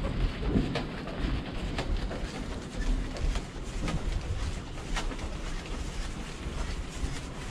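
Walking along a carpeted hallway: footsteps and the rustle of a plastic-wrapped case of water bottles being carried, with sharp ticks about once a second over a low rumble of handling on the microphone.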